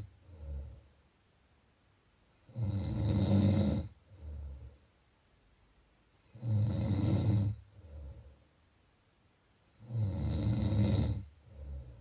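A person snoring in a slow, regular rhythm. There are three loud, low-pitched snores about three and a half seconds apart, each followed by a shorter, quieter breath.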